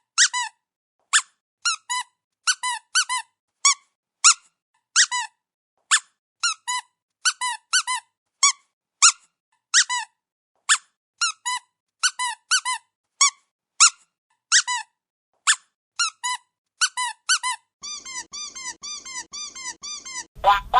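Rubber squeaky dog toy squeezed over and over, giving short high squeaks one or two at a time with pauses between. Near the end the squeezes come quickly in a fast, almost unbroken run.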